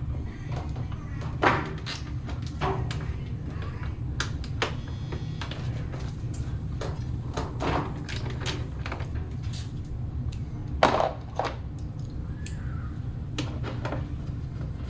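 A socket and bit set being handled: irregular clicks and knocks of its hard case and small metal parts, with two louder knocks about 1.5 s and 11 s in, over a steady low hum.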